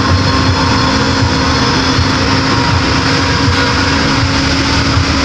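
Sawmill saw and its machinery running steadily and loudly, a constant mechanical din with a steady hum.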